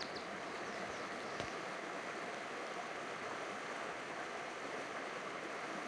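Steady rush of flowing river water, with one faint click about a second and a half in.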